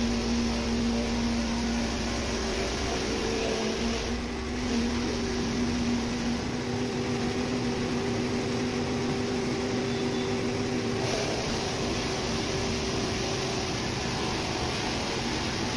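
Steady hum of workshop machinery running: a constant low drone with a second, higher tone over an even hiss.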